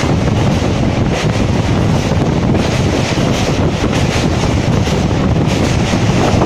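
Loud, steady wind buffeting the microphone, with a constant low rumble underneath.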